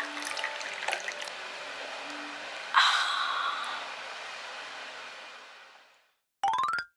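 Tea trickling from a ceramic teapot into a stoneware cup, then a sudden loud sip of tea about three seconds in that tails off. Near the end comes a short rising tone.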